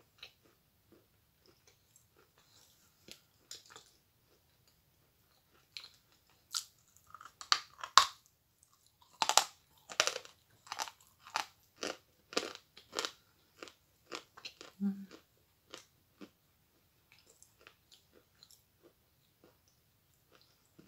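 Chewing on a large chunk of hard Akbulak edible chalk: a few faint clicks at first, then a run of loud, crisp crunches through the middle, easing back to quiet chewing clicks.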